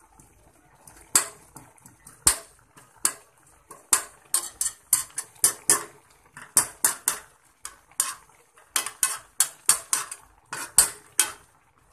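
A metal spoon repeatedly clinking and scraping against a metal cooking pan, a sharp tap about two or three times a second, starting about a second in.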